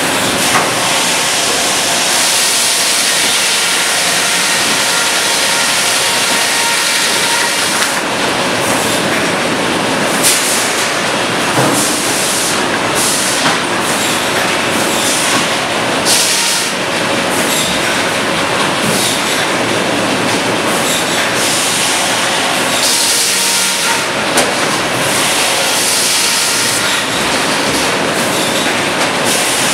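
Sawmill headrig running: a Cleereman log carriage rides its rails with a steady, loud clatter and squeal of machinery, and now and then a sharp knock.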